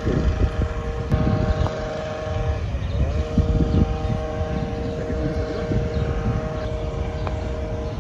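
Electric golf cart driving, its motor giving a steady two-tone whine that drops away and climbs back up about three seconds in, as the pedal is eased off and pressed again. A rumble of wind on the microphone and the ride runs under it.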